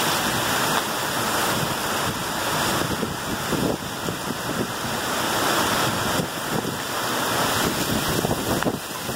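Strong thunderstorm wind rushing steadily through trees, with gusts buffeting the microphone.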